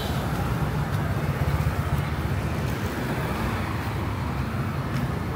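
Street traffic: motor vehicles running with road noise and a steady low hum.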